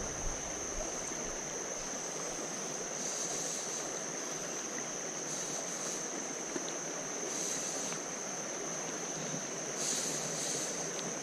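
Creek water running over rocks, a steady rushing, with a thin high whine held steadily above it.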